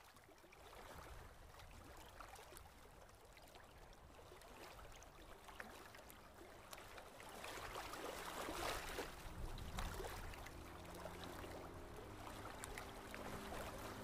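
A dense shoal of small fish splashing and flicking at the surface of shallow water: a patter of many tiny splashes that grows louder about eight seconds in.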